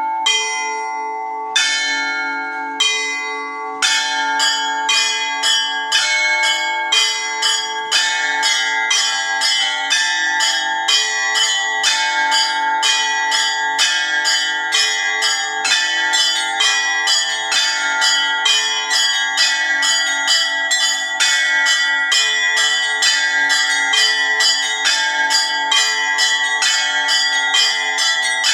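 Russian-style bell ringing (zvon): several bells of different pitches struck in rhythm. It opens with a few slow single strikes, then from about four seconds in settles into a fast, steady peal.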